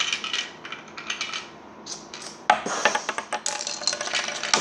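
Plastic Lego pieces clicking and rattling as they are handled, with a sharper clatter about two and a half seconds in.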